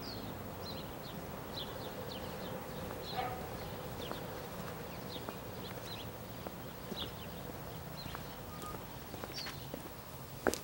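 Small birds chirping, many short high calls scattered throughout, over a steady low background hum; a sharp click sounds near the end.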